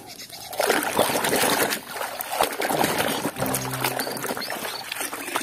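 Water sloshing and splashing as plastic toy vehicles are scrubbed by hand in a basin of muddy, soapy water, with irregular bursts of wet swishing and dripping.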